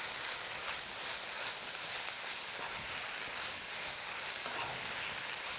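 Leafy greens and ginger sizzling steadily in a hot pan as they are lightly sautéed.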